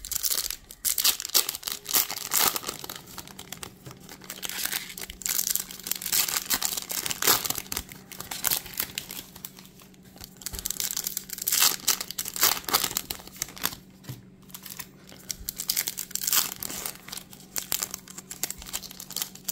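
Foil-wrapped Topps Chrome trading-card packs being torn open and handled: irregular crinkling and ripping of the wrappers throughout. A faint steady low hum sits underneath.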